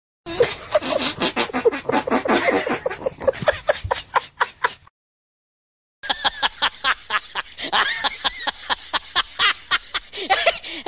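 Two laughter sound effects in a row: a rapid, pulsing burst of hysterical laughing lasting about four and a half seconds, a second of silence, then a second person's fast, pulsing laughter.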